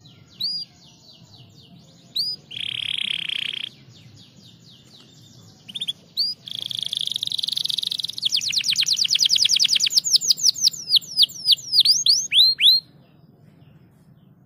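Canary singing: a few short rising chirps and a buzzy rattle, then a fast rolling trill that slows into a run of loud sweeping notes and stops near the end.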